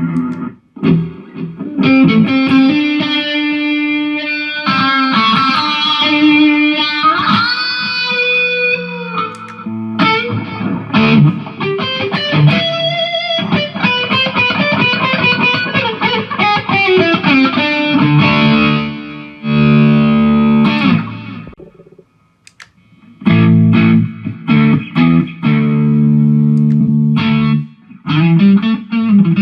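Jackson electric guitar played with distortion through a Mooer GE150 multi-effects unit. Single-note lead phrases with string bends give way to repeated chords that stop short, with a brief pause past the middle.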